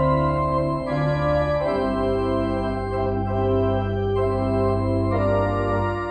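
Organ playing slow, sustained chords over a held bass, with the chord changing twice.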